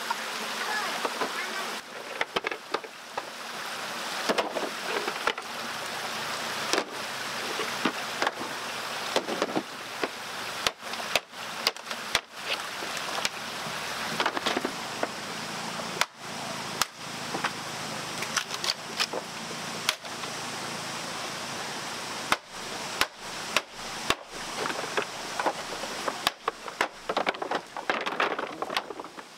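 Hollow bamboo poles knocking and clattering against each other as they are handled and stacked, many sharp knocks over the steady rush of a stream and small waterfall.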